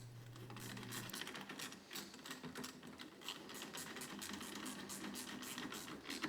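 Faint, quick runs of clicking from a socket ratchet driving in a 10 mm bolt.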